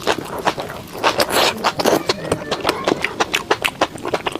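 Close-miked eating sounds: chewing and crunching food, a quick, uneven run of crisp clicks and smacks.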